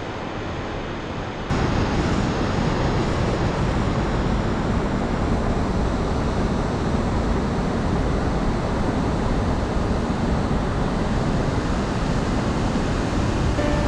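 Steady rushing of wind on the microphone while riding a folding bicycle, stepping up suddenly about a second and a half in and then holding level.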